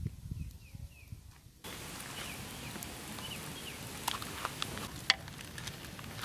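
Sticks being shifted and rustled in a small wood fire. About a second and a half in, the sound changes to a steady hiss with scattered sharp pops, the wood fire crackling under a flat stone cooking slab. A few faint bird chirps can be heard.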